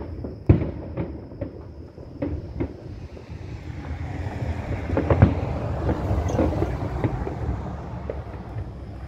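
Fireworks going off: scattered sharp bangs and pops, thickening into a dense stretch of booms and crackling about four to seven seconds in.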